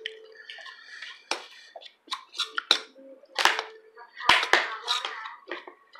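A series of sharp clicks and knocks, the loudest clustered a few seconds in, with voices talking at the table.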